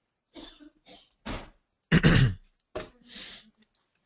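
A man's voice making a few short sounds without clear words, the loudest about two seconds in.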